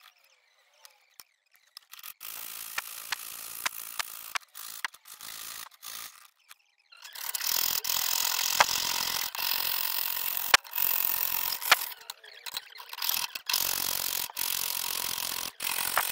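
Jeweller's piercing saw cutting free-cutting brass sheet: a rasping sawing sound with sharp ticks, faint at first and louder from about seven seconds in.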